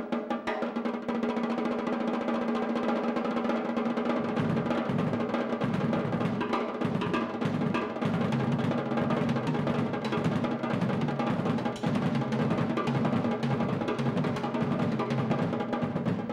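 Solo on a Pearl drum kit with Sabian cymbals: fast, continuous rolls and fills across snare and toms, with cymbals ringing over them. About four seconds in, the low end gets heavier with rapid bass-drum strokes. It is recorded on a single camcorder microphone with no close miking.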